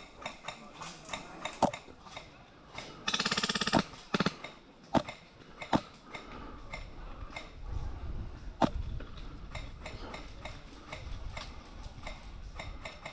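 Airsoft gunfire: scattered sharp single shots, with a short rapid full-auto burst about three seconds in, the loudest sound. A low rumble of wind on the microphone comes in about halfway through.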